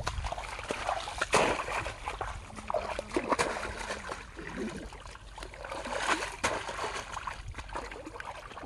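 Irregular splashing and sloshing in shallow muddy water as woven bamboo plunge baskets are pushed down into the mud and hands grope inside them for fish.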